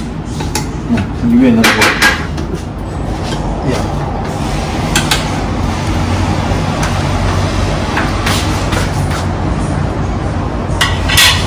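Metal ladle clinking now and then against an enamel pot and a ceramic bowl as hot dessert soup is ladled out, over a steady low kitchen hum.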